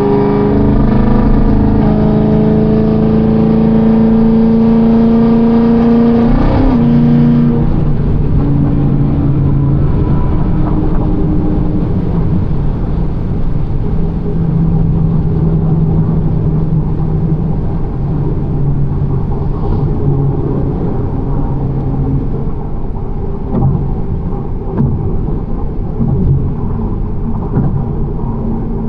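Chevrolet Camaro ZL1's supercharged V8 under hard acceleration, rising in pitch for about six seconds until an upshift drops it, then running at a steadier, lower pitch. The acceleration is a test of new rear tyres, which the driver says still spin under this much power.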